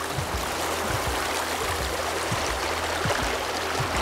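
Water of a small stream rushing steadily, an even, continuous rush.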